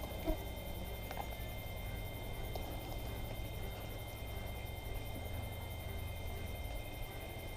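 Steady low hum and hiss of quiet night background, with a few thin steady high tones and one short soft knock about a third of a second in.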